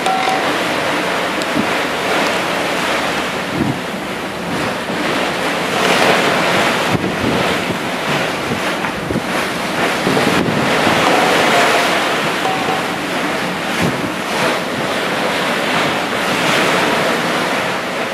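Open sea washing and wind buffeting the microphone: a steady rushing noise that swells roughly every five seconds.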